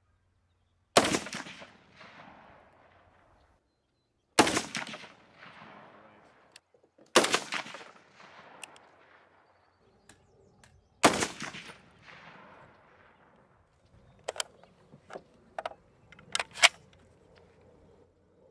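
FN SCAR 17S semi-automatic rifle fired four times, a few seconds apart, each shot followed by a long echo rolling away. Near the end comes a quick run of shorter, sharp cracks and clacks.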